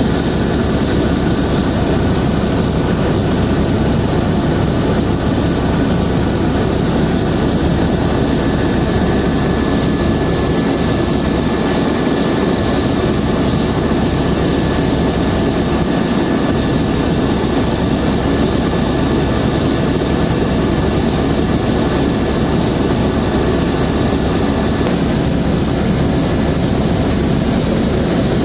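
Helicopter in flight: a loud, steady drone of rotors and turbine engine, with a thin constant whine above it.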